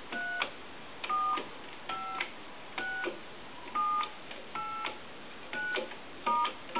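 Touchtone keypad of a converted single-slot payphone dialing: a run of short two-tone DTMF beeps, about one a second, each a different key and each with a faint key click. The tones come from the payphone's new PC-board tone generator wired to the keypad.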